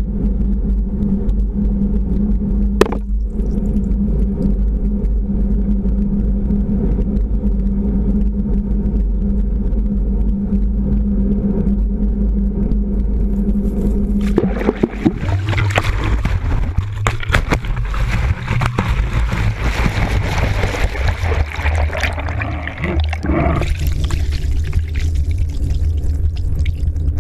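Underwater sound near the surface: a boat engine's steady drone with water rushing. About halfway through, the drone drops lower and a louder rushing hiss of churned water comes in. A single sharp click about three seconds in.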